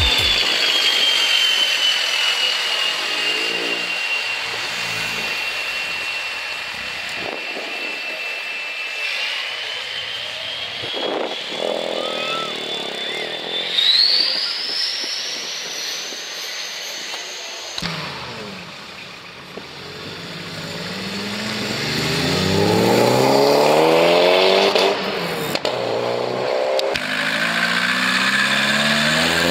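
Cars pulling away from a roadside, engines revving up as they accelerate: in the second half the revs climb sharply, twice. In the first half a steady high-pitched whine runs under the engines and rises sharply about fourteen seconds in.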